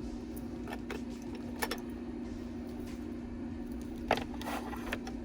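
Light, scattered clicks and taps of plastic makeup compacts being picked up and set into an organizer, two of them louder, over a steady low hum.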